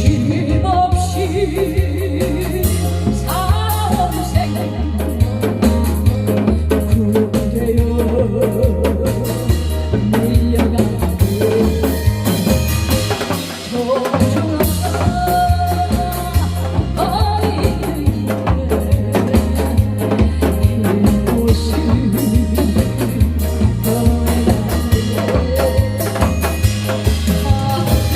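A song with singing over a backing track and a steady, regular drum beat.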